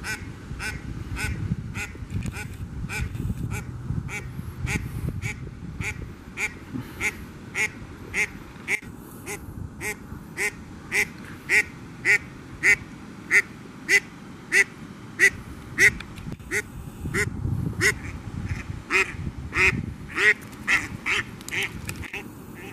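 Hen mallard quacking over and over at a steady pace, about one and a half quacks a second, the quacks growing louder through the middle of the run.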